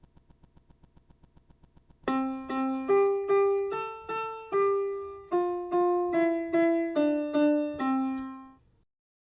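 Toy electronic upright piano playing a simple one-note-at-a-time melody in a piano voice, about fifteen notes, with the tune stepping down toward the end. Before it, for about two seconds, there is faint rapid ticking.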